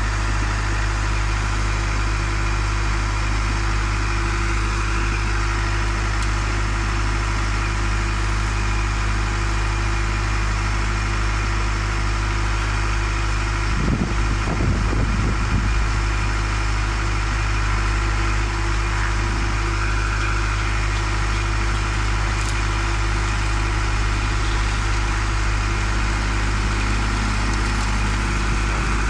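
A CO-NELE concrete mixer-pump machine running with a steady engine drone and low hum. About halfway through, a rougher low rumble comes in for a couple of seconds.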